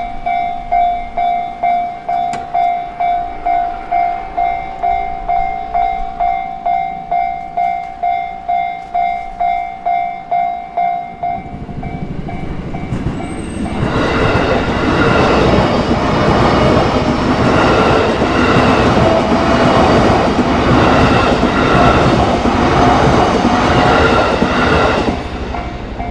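Japanese level-crossing warning bell ringing about twice a second. From about 12 s a train approaches, and from about 14 s to near the end it passes loudly over the crossing, its rail noise drowning the bell.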